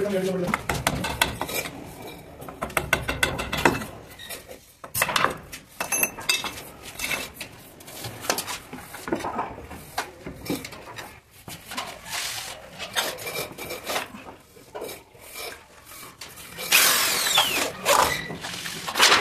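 Hammer tapping a chisel to pare a wooden window frame: a quick run of sharp knocks over the first few seconds, then scattered wooden knocks. Near the end comes a loud scrape of wood rubbing on wood as the small wooden sash is tried in the opening.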